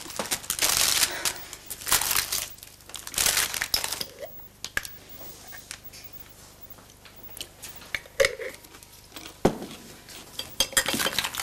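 Wrapping crinkling and rustling in several short bursts, mostly in the first four seconds and again near the end, with a few light knocks in between.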